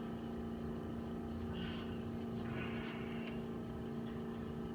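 Chiropractic drop table's air compressor running with a steady hum as it refills the table's pneumatic drop pieces.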